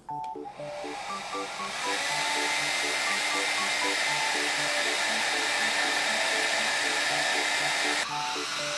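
Xiaomi Mijia H301 ionic hair dryer running: a steady rush of air with a thin high whine. It gets louder about two seconds in and drops back about eight seconds in.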